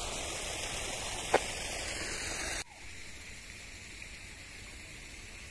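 Garden fountain water splashing in a steady rush, with one short sharp tap about a second in. The rush cuts off suddenly about two and a half seconds in, leaving a quieter steady hiss.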